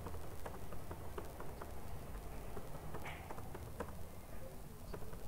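Computer keyboard typing: irregular light key clicks, a few each second, over a low steady hum.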